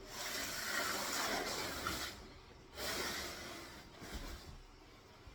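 A man breathing heavily with two long exhales, the first about two seconds long and the second, after a short pause, a little shorter.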